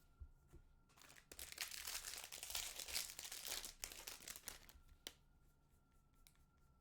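A foil trading-card pack wrapper crinkling and tearing as it is ripped open, for about three seconds, followed by a couple of light clicks from handling the cards.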